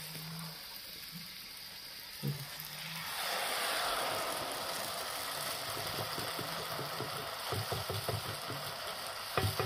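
Batter-coated rosette iron lowered into hot oil about three seconds in: the oil breaks into a loud, steady sizzle as the rosette fries. Rapid light clicks and knocks come over the sizzle in the later part.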